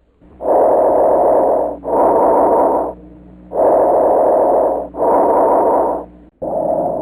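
Recorded abnormal breath sound: noisy breathing in paired in-and-out phases, each about a second long, about two full breath cycles with a third beginning near the end.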